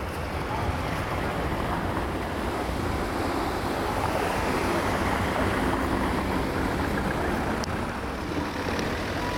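Steady wind noise on the microphone, a rushing haze with a low rumble, over outdoor street ambience.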